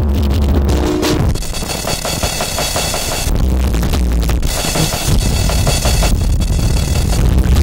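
Noise-rock recording: a frantic drum kit, with bass drum, snare and cymbals, pounding under a harsh, dense wall of noisy electric guitar that surges twice.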